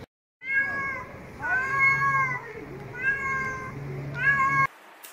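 Domestic cat meowing four times, each meow under a second long and about a second apart.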